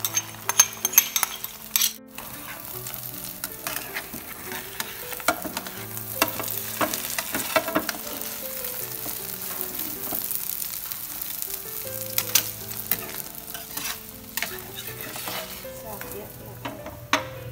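Beaten duck eggs with scallions sizzling in hot oil in a nonstick frying pan. A spatula scrapes and taps against the pan many times as the omelette is folded and slid out.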